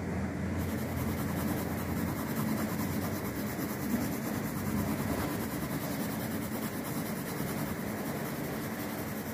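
A wooden pencil shading on drawing paper, the graphite rubbing steadily and without a break.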